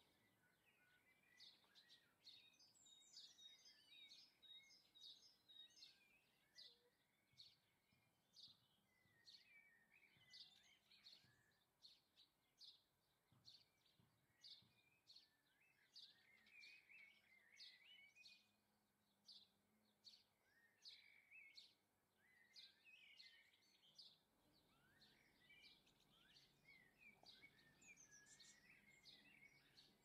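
Faint garden birdsong: small birds repeat short, sharp high chirps about once a second, with softer twittering and trills beneath.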